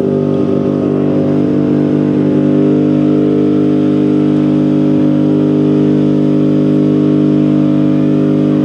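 A truck doing a burnout, its engine held at a steady high rev while the rear tyres spin.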